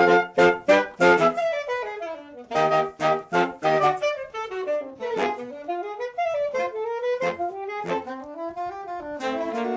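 Saxophone quartet playing: a string of short, detached chords, then quick rising and falling runs, settling into held chords near the end.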